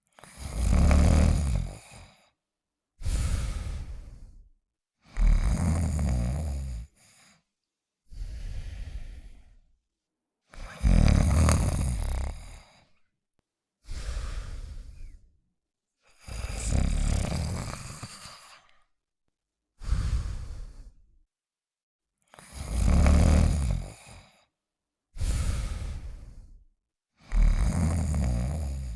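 Cartoon dog snoring in slow regular cycles: a loud, deep snore about every six seconds, alternating with a softer, breathier one, with short silences between.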